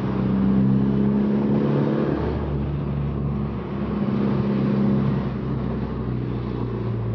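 Car engine and exhaust droning steadily while driving, heard from inside the cabin, with small rises and falls in engine pitch.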